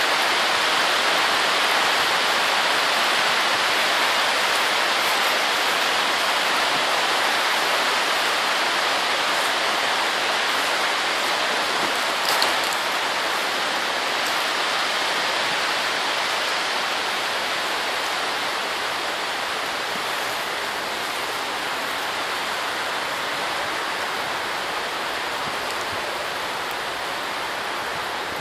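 Steady rain falling on the plastic sheeting of a polytunnel, a dense even hiss with one sharper drop hit about twelve seconds in. It grows slightly quieter toward the end.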